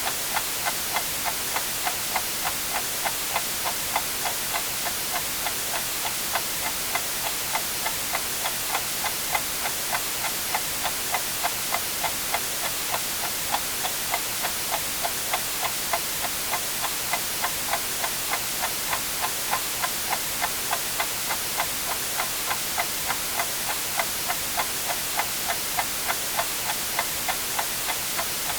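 A clock ticking steadily, about two ticks a second, over a constant white-noise hiss.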